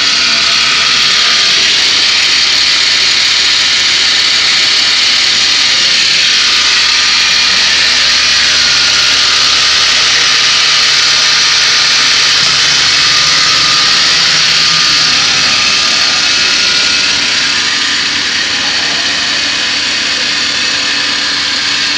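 CNC router with saw-blade and boring head running: a loud, steady, high-pitched machine whine and hiss that eases slightly near the end.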